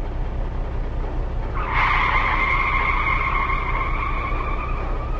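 Low vehicle rumble with a high squeal that joins about a second and a half in, holds for some three seconds and drops slightly in pitch toward the end.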